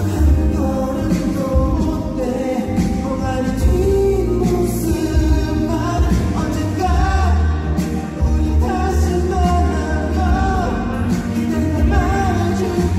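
A man singing a slow pop song live into a microphone, his melody gliding between held notes over instrumental accompaniment with a steady bass line.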